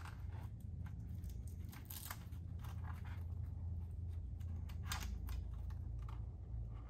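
Velcro straps of a Mucky Nutz plastic mudguard being wrapped around a mountain bike's suspension fork and pressed together: scattered scratchy rips and clicks, the loudest about two and five seconds in, over a steady low hum.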